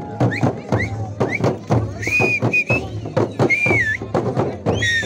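Frame drums beaten with sticks in a steady rhythm of about three strokes a second. High whistle-like calls glide over the beat, with short rising chirps early on and longer wavering ones about two seconds in and near the end.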